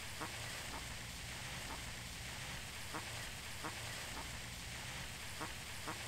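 Ducks quacking faintly on a pond, short single calls about once a second over steady outdoor background noise.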